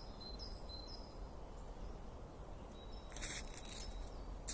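Small songbirds singing in a forest: thin, high whistled notes, several sliding downward, repeated through the first second or so, over a steady low background rumble. A short noisy burst comes about three seconds in.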